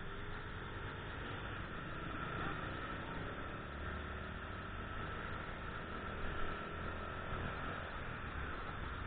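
Small motorcycle running at low speed in slow traffic: a steady engine note that drifts gently up and down, under road and wind noise.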